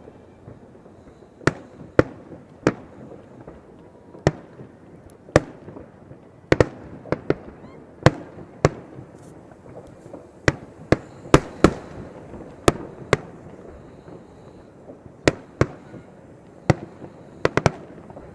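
Aerial fireworks bursting, about twenty sharp bangs at uneven intervals, some in quick pairs and a fast run of three near the end.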